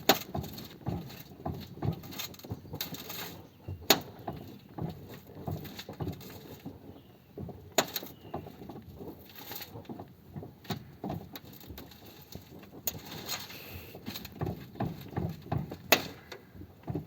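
Steering of a Renault Mégane phase 1 knocking and clicking irregularly, with a few sharp, loud knocks several seconds apart. The owner is unsure of the cause and asks whether it is normal for the steering rack to move in its mounts.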